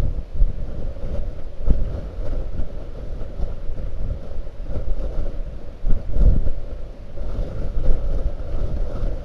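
Blizzard wind buffeting the microphone in gusts: a heavy, rumbling roar with sharper surges about half a second in, near two seconds, and around six seconds.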